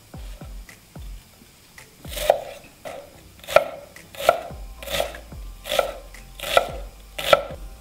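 Chef's knife chopping an onion on a wooden cutting board: a few light taps at first, then from about two seconds in about seven sharp knife strikes against the board, roughly one every three-quarters of a second.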